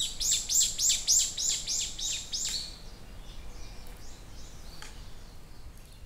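A bird singing a rapid series of repeated high, arched notes, about three to four a second, which stops after about two and a half seconds; fainter, scattered chirps follow over a soft outdoor background.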